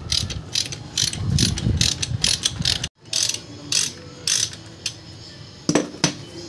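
Socket ratchet clicking in quick runs as it turns the clutch spring bolts on a Yamaha Sniper 150's clutch pressure plate. The sound cuts out for a moment about three seconds in, then comes back as sparser clicks, with a couple of sharper metal knocks near the end.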